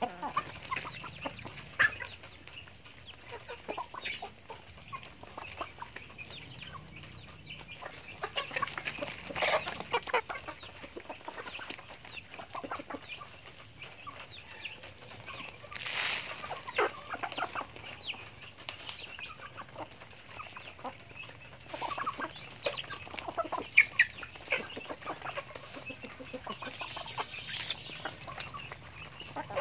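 A flock of backyard chickens, hens and a rooster, clucking with many short scattered calls while they forage and peck. A brief burst of noise comes about halfway through.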